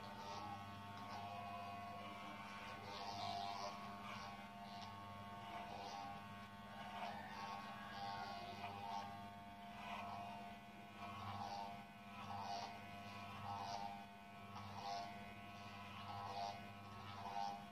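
Corded Wahl electric hair clipper buzzing faintly as it is run over the side of the head and neck, the buzz rising and falling with each stroke through the hair.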